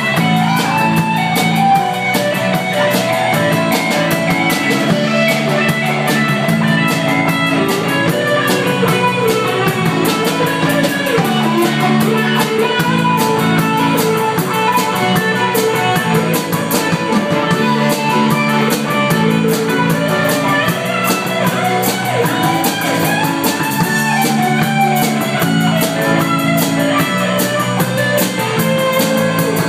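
Live rock band playing: guitar over a steady drum kit beat with bass and keyboard.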